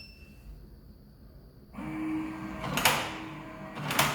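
Smart lock unlocking after a code is entered on its keypad: a motor hum starts about halfway through, with two sharp mechanical clicks about a second apart from the latch and door.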